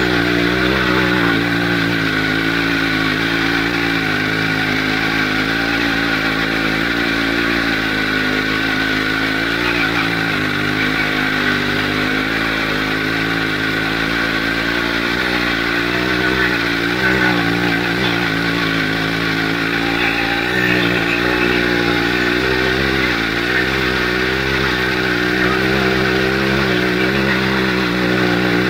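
Two-stroke chainsaw engine of a homemade all-wheel-drive motorcycle running steadily while riding, its pitch rising and dipping slightly with the throttle a few times.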